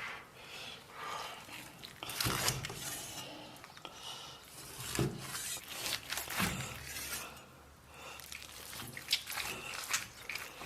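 Knife cutting boiled beef into pieces on a cutting board: irregular knocks of the blade against the board, with some scraping.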